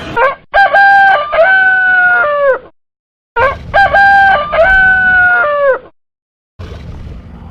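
Rooster crowing, cock-a-doodle-doo, twice: the same crow repeated, each about two and a half seconds long, with short opening notes and a long held note that falls away at the end. A quieter rumbling noise begins near the end.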